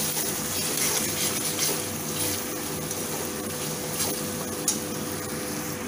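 Chopped tomatoes and capsicum sizzling in hot oil in a metal kadai as a steel spatula stirs them, with a few sharp scrapes and clicks of the spatula against the pan.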